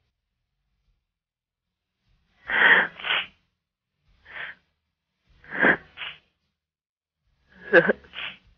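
A woman sobbing over a telephone line: short gasping sobs and sniffs in bursts a second or two apart, the last one breaking into a wavering voiced sob.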